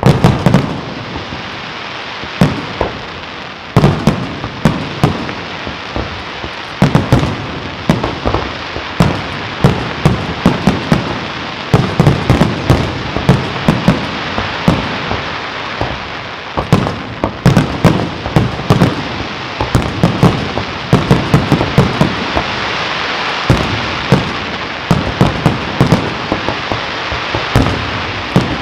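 Aerial fireworks display: many loud shell bursts and reports, often in quick clusters, over a continuous dense crackle of crackling stars, starting suddenly and keeping up without a break.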